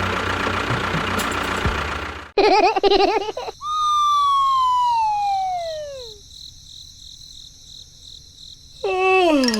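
A steady mechanical running noise that cuts off abruptly about two seconds in, followed by a wobbling warbling tone and then a long falling whistle, like an edited-in cartoon sound effect. Another short falling tone comes near the end.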